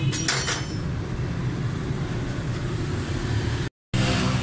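Suzuki Cultus EFI's three-cylinder engine running steadily at idle, an engine the mechanic finds excessively noisy with very loose tappets. A few sharp clicks come about a quarter second in, and the sound cuts out briefly near the end.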